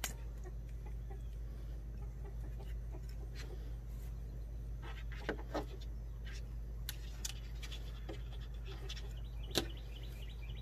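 Faint scattered clicks and small cracks from a knife cutting through a plucked chicken's leg joint and tendons on a plastic table, over a steady low hum. The sharpest click comes about nine and a half seconds in.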